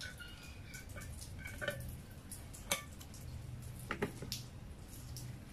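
Kitchen scissors snipping through a soft sheet of fresh tofu skin, with light clicks of the blades and a couple of sharper taps past the middle.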